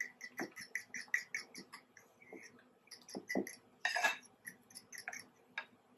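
Fork beating eggs and cheese in a bowl: quick, regular clicks of the fork against the bowl, about four to five a second, with a brief pause and a louder scrape about four seconds in.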